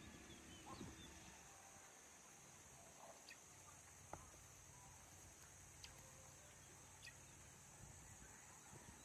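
Near silence: faint outdoor ambience with a few faint, short bird chirps scattered through it.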